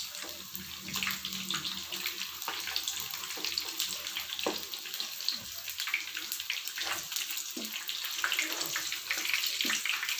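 Hash brown patties sizzling as they fry in hot oil in a nonstick pan, a steady hiss with scattered crackles and pops.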